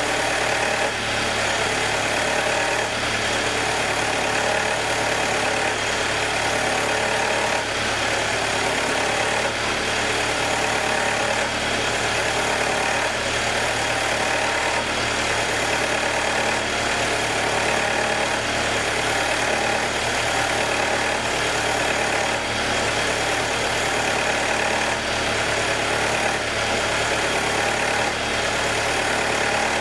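2021 Jeep Wrangler's 2.0-litre turbocharged four-cylinder idling steadily on a cold start with a ticking, part of a ticking cycle that the owner says runs about 90 seconds after every cold start before the engine goes to normal, and which he finds abnormal.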